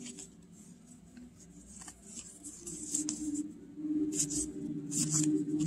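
Small glossy oracle cards sliding and brushing against each other as a deck is fanned through by hand, with a few short swishes in the second half. A faint steady low hum sits under it from about halfway.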